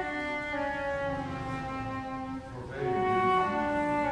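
Concert flute playing a slow phrase of long held notes; the sound breaks off briefly about two and a half seconds in, and another phrase of held notes begins.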